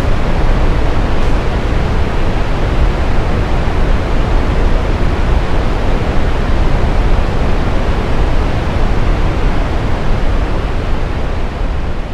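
Toketee Falls, a two-tier waterfall on the North Umpqua River, pouring at unusually high flow, heard close up as a loud, steady roar of water. The flow is about double the usual because the hydroelectric flume upstream is closed for maintenance.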